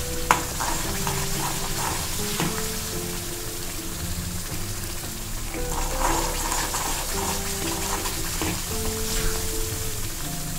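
Thick ginger thokku sizzling in oil in a metal kadai while a steel spoon stirs and scrapes it, with an occasional click of spoon on pan. The paste is being cooked down until the oil separates at the sides. Soft background music with held notes runs underneath.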